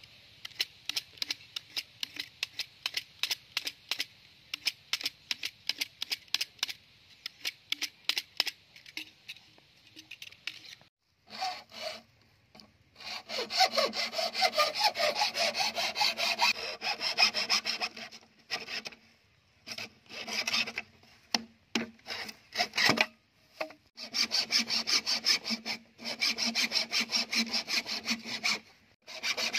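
A utility knife shaving the cut end of a bamboo tube in short, quick strokes. About eleven seconds in, after a brief pause, a hacksaw starts cutting through a green bamboo stalk in back-and-forth strokes, stopping and starting again several times.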